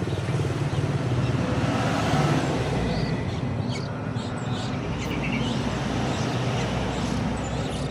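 Steady low rumble like nearby traffic, with a few faint short chirps from a yellow-vented bulbul chick being hand-fed, about three to five seconds in.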